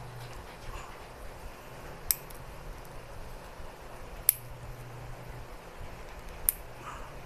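Motorcycle helmet's plastic visor holder clicking sharply three times, about two seconds apart, as it is pushed and worked loose by hand.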